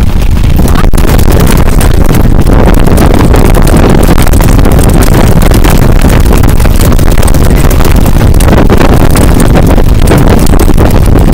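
Loud, steady rumble of a bicycle trailer rolling over pavement, with wind buffeting the microphone and many small rattles and clicks from the trailer frame.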